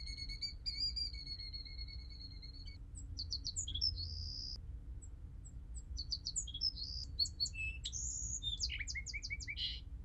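Birds calling and singing: a long, high, steady call with a few small pitch jumps over the first three seconds, then songbird songs of short high notes, buzzes and quick trills, busiest in the last four seconds.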